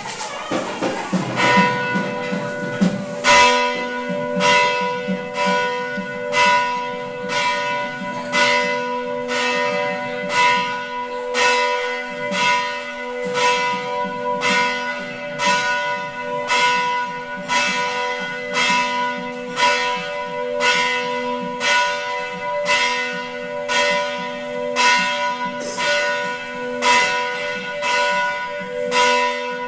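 Hindu temple bell struck over and over at a steady pace, about one stroke a second, each stroke ringing on with several steady tones. It comes in faintly about a second and a half in and is loud from about three seconds.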